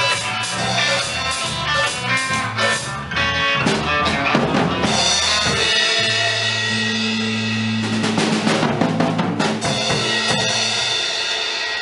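Live band playing amplified music during a sound check: a drum kit with snare and bass drum hits over electric guitar and sustained low notes.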